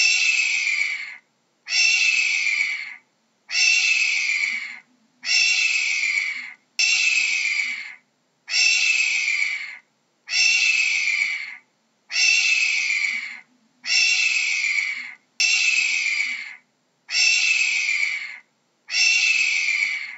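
Hawk screaming over and over: a harsh call about a second long that falls slightly in pitch, repeated about every second and a half to two seconds, a dozen times in all.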